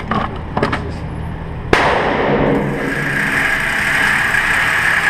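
A single gunshot in an indoor range, a sharp crack with a long echoing tail, preceded about a second earlier by two light clicks. Steady noise follows the shot.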